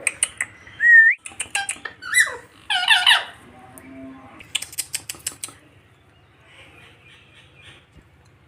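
Indian ringneck parakeet chattering: sharp clicks, short squeaks and a brief rising whistle, then a quick run of clicks about five seconds in, fading to soft chatter.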